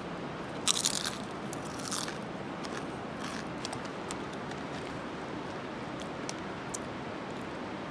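Thick, crunchy potato chip bitten and chewed: a loud crunch about a second in and another near two seconds, then quieter, scattered crunching as it is chewed.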